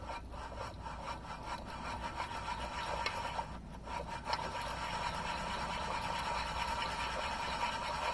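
Husqvarna 3120 XP chainsaw crankshaft spinning in its main bearings, a steady rubbing whir with a faint ringing tone, a little louder after about four seconds. The bearings sound pretty good: no obvious roughness or failure.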